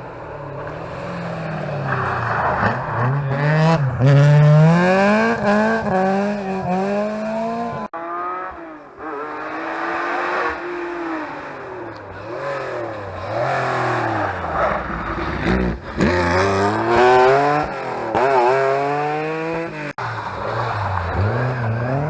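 Historic rally cars at full throttle, engines revving high and dropping back again and again as they shift gears. The sound breaks off abruptly twice as one car gives way to the next.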